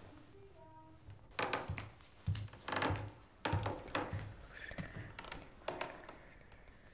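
A short rising run of faint tones, then a series of sharp knocks and clattering hits, several in quick succession, that thin out near the end.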